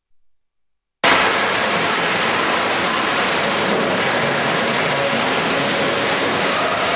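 A bucket-line gold dredge running: a loud, steady rushing roar of machinery and water that starts abruptly about a second in, after silence.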